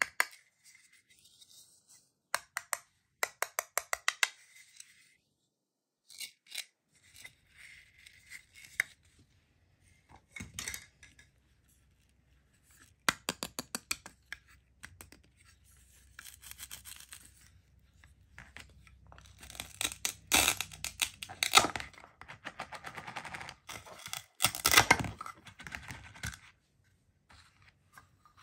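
Velcro patches on plastic toy play-food fruit pulled apart and pressed together again and again, each pull a short crackling rip. Light clicks and taps of the plastic pieces being handled come between the rips.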